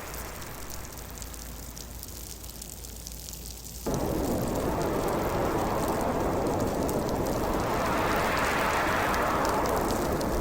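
Gusting winter-storm wind, a steady rushing noise that stays quieter at first, jumps back up abruptly about four seconds in, and swells into a gust near the end, with faint fine crackling high over it.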